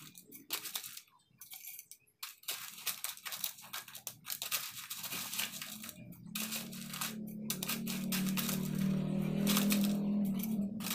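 Ice cubes tipped from a plastic container into a glass blender jar of fruit, clattering and clinking in quick bursts over the first half. In the second half a steady low drone swells to the loudest point and then eases off near the end.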